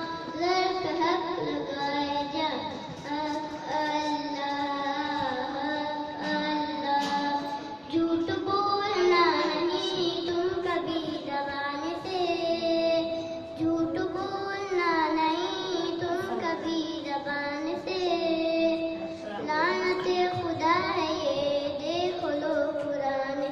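A boy's solo voice singing an Islamic devotional recitation into a handheld microphone, with long held notes and ornamented sweeps up and down in pitch.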